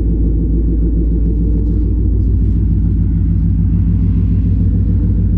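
An engine running at a steady speed, a loud, even low hum.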